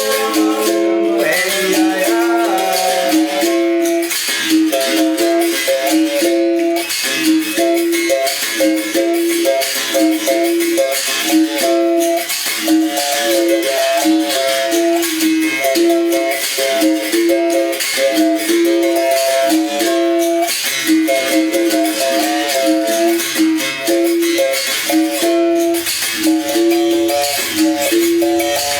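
Bamboo berimbau being played in a steady, repeating rhythm: the stick strikes the wire string while the caxixi basket rattle shakes along with it. The note keeps switching between a low open tone and higher tones.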